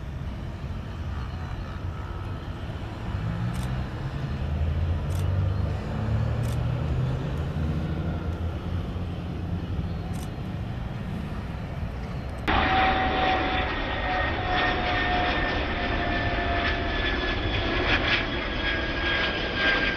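Airliner engines: a low rumble, then after an abrupt change about twelve seconds in, a louder engine whine with tones slowly falling in pitch.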